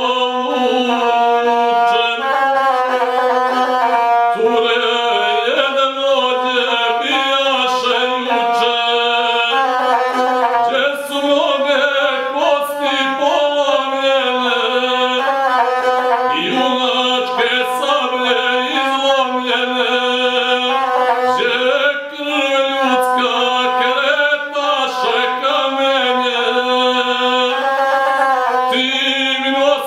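A man singing a South Slavic epic song to his own accompaniment on the gusle, a single-string bowed instrument, the voice and the bowed string running together in one continuous chanted melody.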